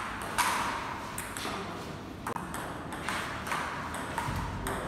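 Table tennis rally: the ball ticking sharply off the paddles and bouncing on the table, a quick run of clicks every half second or so.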